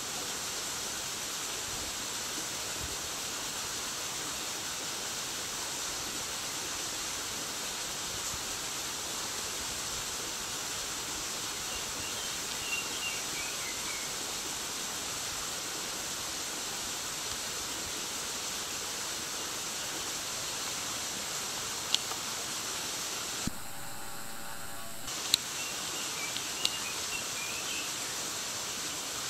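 Steady rush of flowing stream water, with faint bird chirps twice. Near the end the rush briefly drops out, and there are a few sharp clicks.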